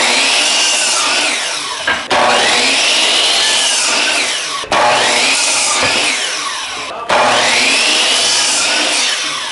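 Hitachi compound miter saw cutting a 2x4, four cuts one after another. Each restarts abruptly, and in each the motor's whine dips and recovers as the blade goes through the wood.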